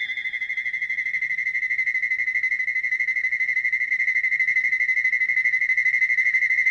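A steady high-pitched warbling tone, pulsing rapidly and slowly growing louder, from a sound-effects recording; a few other tones fade out in the first second.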